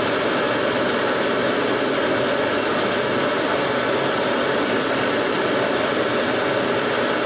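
Gas blowtorch flame burning with a steady hiss while it heats a mild-steel test piece to bright red heat ahead of a water quench.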